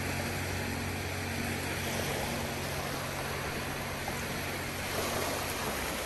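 Sea surf washing steadily onto a stony shore, an even rushing hiss of water, with faint low held notes of background music lingering underneath.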